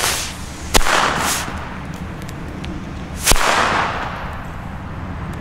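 Two hand-made Spanish Super Masclet Faller firecrackers going off one after the other: two sharp bangs about two and a half seconds apart, each with a short echo. The tester judged them among the weakest of the set despite being the largest.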